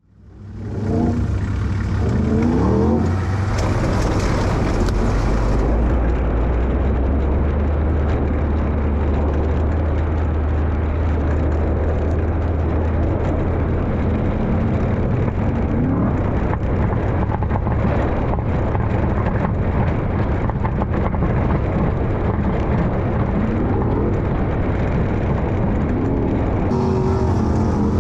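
Onboard sound of an LS1 V8 sprintcar running hard around a dirt oval, the engine note steady and loud, dipping and climbing again a few times as the car goes through the turns. It fades in over the first second.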